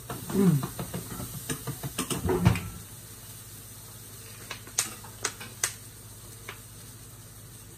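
Light kitchen clatter: scattered clicks and taps of sauce bottles and utensils being handled over a steady low hum, busiest in the first three seconds, with a few more clicks later on.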